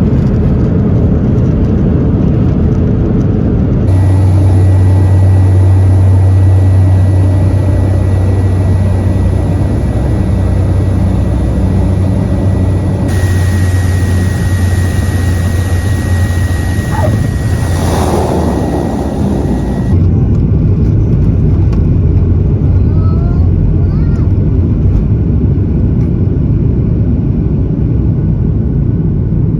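Airplane engine noise in spliced clips: a Boeing 737-8's jet engines, then from about four seconds in a Cessna 208B Grand Caravan EX's single turboprop with a steady low drone, then from about twenty seconds in another Boeing 737-8's jet engines.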